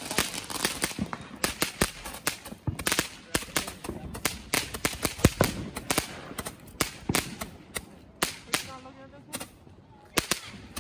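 Consumer fireworks going off: a rapid, irregular string of sharp pops and bangs, from a handheld Roman candle firing into the sky and fireworks on the street.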